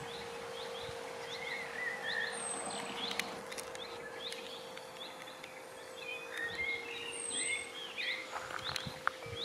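Several songbirds chirping and singing, many short quick chirps overlapping with a few high thin whistles, over a faint steady hum.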